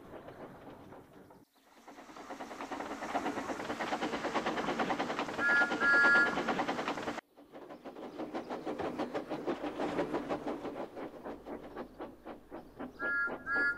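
Steam tank engine running with a fast, even chuffing rhythm, giving two short whistle toots about six seconds in and a few more near the end. The sound drops out for a moment twice.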